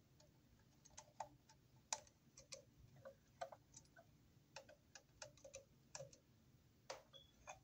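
Faint, irregular clicks and ticks of a screwdriver working the terminal screws of a three-phase twist-lock receptacle while a wire is set under the terminal's pressure plate.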